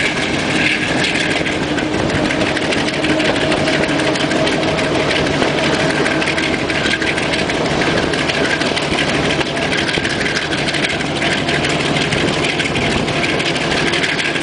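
Kenya Railways diesel locomotive's engine running hard under load as it hauls the train, heard from the leading coach close behind it, over the steady rumble of the moving train.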